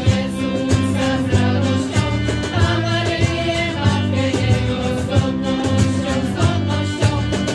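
Small mixed choir singing a Polish Christmas carol with violin and acoustic guitar accompaniment over a bass line and a steady percussion beat.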